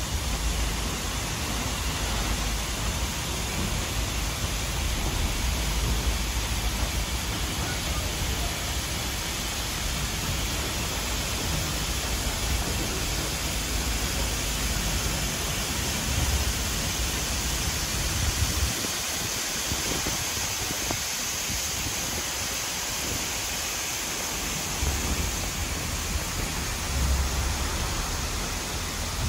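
Steady rushing noise of a waterfall cascading down a rock face close by, with a low rumble underneath that drops away for a few seconds past the middle.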